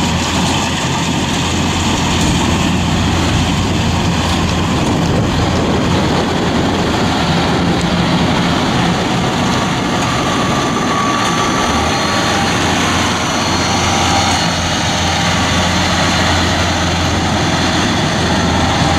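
Diesel engines of rice combine harvesters running under load, a loud steady drone with no let-up.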